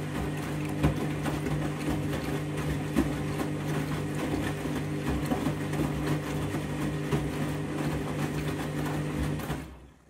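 Candy front-loading washing machine tumbling a medium load in its rinse: a steady motor hum with water and suds sloshing and the laundry knocking in the drum. The motor stops near the end as the drum pauses between turns.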